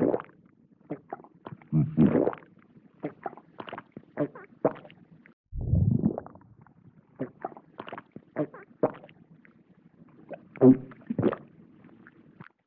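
A string of short vintage-cartoon comedy mouth sound effects played one after another, with brief gaps between them. There is a longer, lower one about six seconds in.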